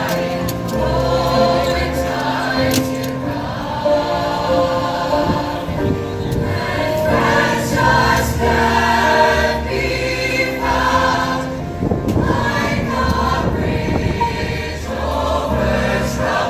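Choir singing a sustained, harmonised song with a low bass underneath.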